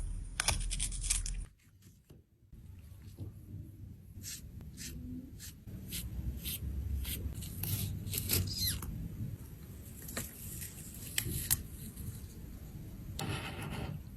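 Small clicks, taps and scrapes of tools handling an eyeshadow compact during a makeup repair, with a longer hissing rasp near the end.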